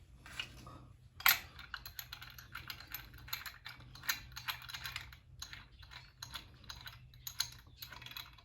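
Hand ratchet wrench being worked, a dense run of quick metallic clicks starting about a second in.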